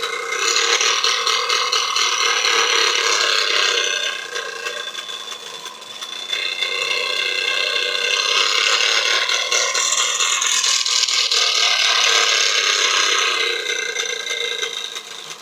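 A homemade bicycle noisemaker, something fixed to the frame striking the spokes of a turning wheel, giving a rapid engine-like rattle. It swells up and dies away twice, first for about four seconds, then for about eight.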